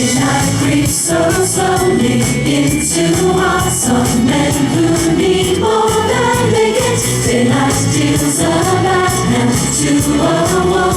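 Background music: group singing in harmony over a steady bass and drum beat.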